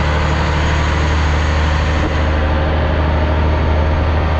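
Inboard engine of a fishing boat running steadily under way, a loud even drone with a low hum, heard inside the wheelhouse.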